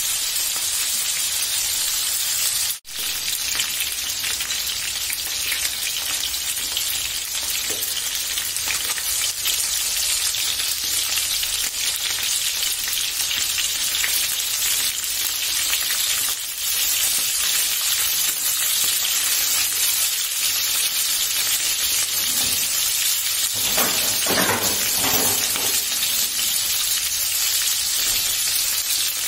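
Chicken skewers frying in oil in a pan, a steady sizzle that cuts out for a moment about three seconds in. A few seconds before the end there are brief sounds of the food being handled in the pan.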